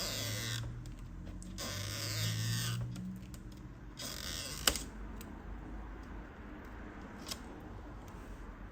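Adhesive tape being pulled and peeled from behind a laptop LCD panel, in three creaking pulls, with a sharp click partway through.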